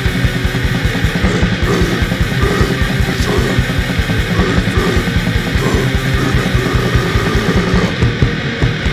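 Black/death metal song: heavily distorted electric guitars riffing over fast, unbroken bass-drum hits, loud and dense throughout.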